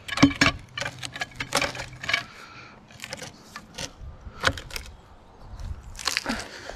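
Thin-handled steel cant hook being set into a log and levered: the swinging hook clinks and knocks against the bark in irregular sharp clicks, the loudest near the end.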